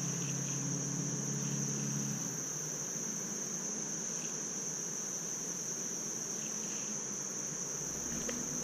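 Insects trilling, most likely crickets: a constant high-pitched drone that holds steady throughout. A low hum stops about two seconds in.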